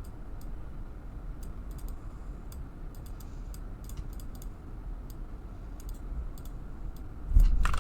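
Irregular clicks of a computer mouse and keyboard, a few at a time over a low steady background. A low thump near the end.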